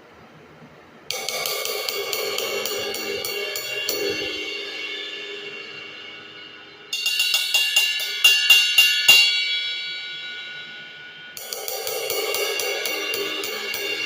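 Vintage Sabian ride cymbal being struck and left to ring: a bright wash starts suddenly about a second in and slowly fades, a quick run of separate strokes follows around the middle, and another washy strike comes near the end.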